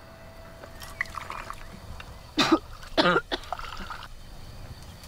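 Tableware being handled and a drink poured from a metal jug: scattered clicks of china, with two short louder sounds about halfway through.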